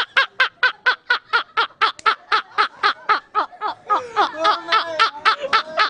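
Two men laughing hard, a long run of rhythmic "ha-ha-ha" pulses at about five a second; in the last two seconds the laughs overlap and waver.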